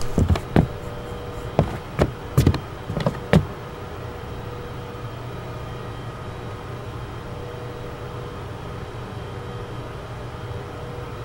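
Several sharp knocks or clicks over the first three seconds or so, then a steady low hum.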